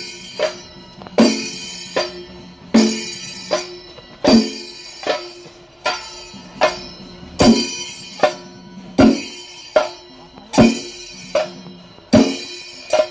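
Kerala temple-festival percussion playing a slow, even beat: a strike about every four-fifths of a second, alternately louder and softer, each one ringing on and dying away before the next.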